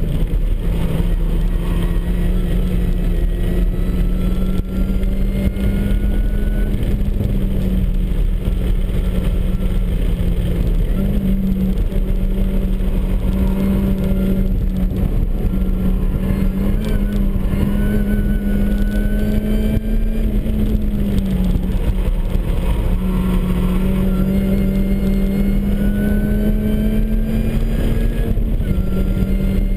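Supercharged MINI Cooper S four-cylinder engine under hard track driving: the engine note climbs in pitch under acceleration and drops back at each shift or lift, over a steady bed of road and wind noise.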